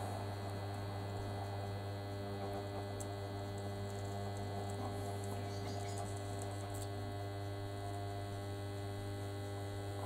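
High-current supply transformer giving a steady electrical hum while it pushes about 900 amps through a padlock's steel hasp.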